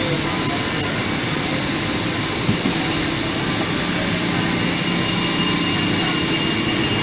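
Serkon MC50 automatic CNC fabric cutter running: a loud, steady mechanical whir with a high hiss from the machine as its cutting head works across the table.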